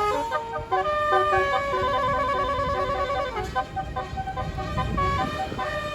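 Bus telolet horn, a multi-trumpet musical air horn, playing a tune of held notes that step up and down, with a fast warbling trill about two seconds in. A low rumble runs underneath.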